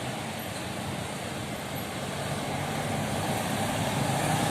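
Road traffic: a bus's engine and tyres, growing louder as it approaches.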